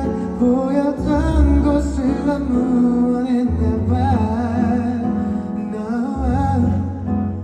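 Live pop ballad: a male voice singing a wavering melody over guitar and bass, heard through a concert sound system.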